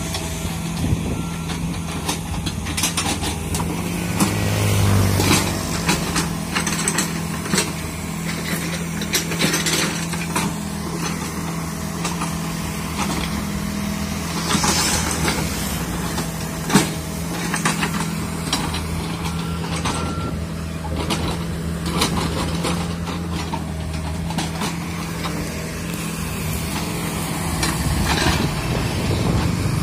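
Komatsu PC45MR mini excavator's diesel engine running steadily under load, with scattered knocks, scrapes and crackles as the bucket digs into soil and drags dry brush.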